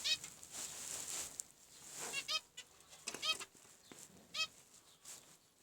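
Zebra finches giving short, nasal, trumpet-like calls, several in a row about a second apart, over a faint high hiss.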